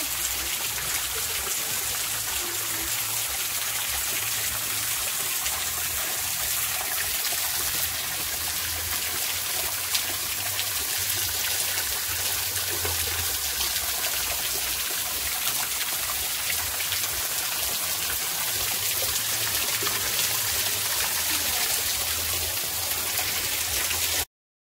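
Water trickling and dripping in thin streams down a wet rock face, a steady splashing rush that stops suddenly near the end.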